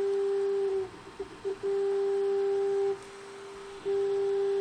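Stepper motors of a Sovol SV06 3D printer whining at one steady pitch as the print head makes long moves, in three stretches of about a second each, with brief shifting tones between them where the head changes direction.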